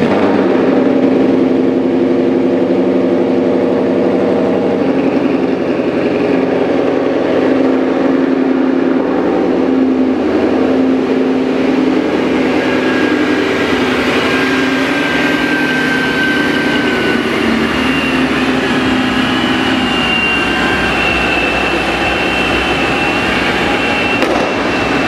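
Supercharged 5.0 Coyote V8 of a Ford Mustang GT idling steadily. A faint high whine joins in about halfway through.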